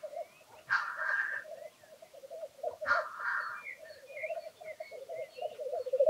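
Black grouse males lekking: a continuous bubbling coo, broken by two hissing sneeze-like calls, about a second in and about three seconds in. Faint short chirps from other small birds sound above it.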